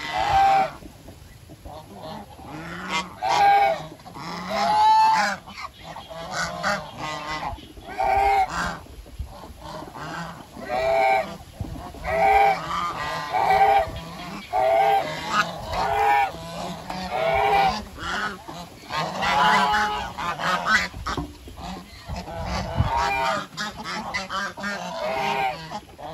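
A flock of domestic geese honking over and over, with loud calls coming every second or so.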